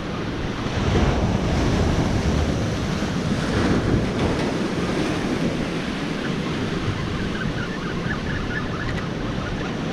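Ocean waves breaking and washing over the rocks of a jetty in a steady rush, with wind buffeting the microphone.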